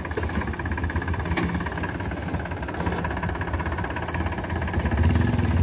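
Powertrac Euro 50 tractor's three-cylinder diesel engine running at close range as the tractor drives by with its rotavator raised, growing louder about five seconds in.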